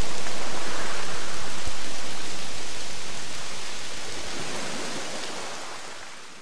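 Steady rush of a waterfall spilling over mossy tufa rock, fading slowly away over the last few seconds.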